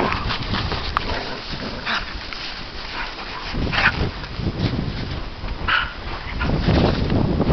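A dog barking playfully in short single barks, three of them about two seconds apart, over low rumbling noise.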